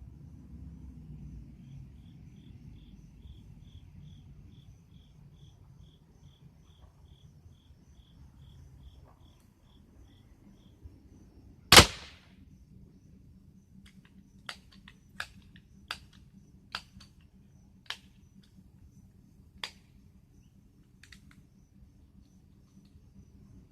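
.22 air pistol firing a single loud, sharp crack about halfway through. Six lighter clicks follow over the next several seconds. Earlier, a faint chirp repeats evenly a couple of times a second.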